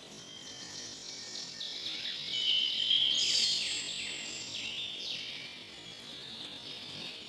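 Forest songbirds chirping, many short, high calls overlapping, growing to their loudest about three seconds in and then easing off.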